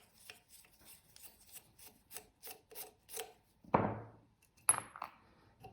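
Small metal parts of a revolver being worked by hand during disassembly: a run of quick light scraping ticks, about four or five a second, then a knock and a sharp metallic click with a brief high ring.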